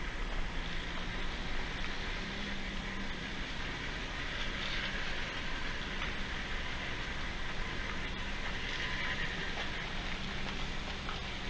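Steady low engine hum with a faint constant tone, mixed with wind rumble on the microphone.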